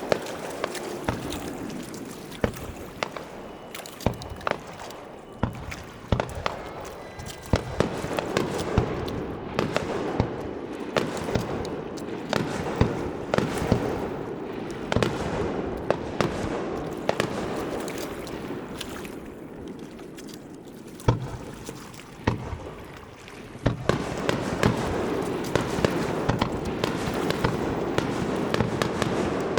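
Aerial fireworks going off in quick succession: many sharp bangs and pops over a steady rumble, easing off about two-thirds of the way through and then picking up densely again near the end.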